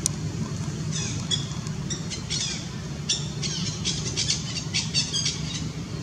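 A rapid series of short, high-pitched, falling chirps, several a second and busiest in the middle, over a steady low background hum.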